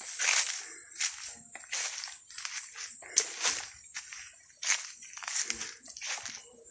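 Irregular crunching and rustling, several crackles a second, over a steady high-pitched hiss.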